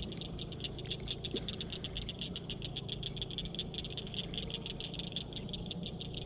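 A steady chorus of calling animals: a high-pitched, rapidly pulsing trill, with a low steady hum underneath.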